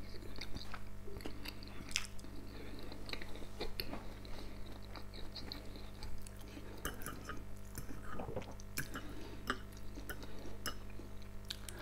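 Close-up chewing of boiled meat dumplings (pelmeni), with a few light clicks of a spoon and fork against the bowls in the second half. Under it runs a steady low electrical hum from a lamp.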